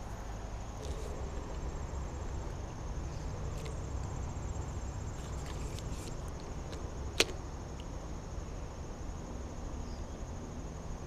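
Crickets chirring steadily in one high, even tone, with a single sharp click about seven seconds in.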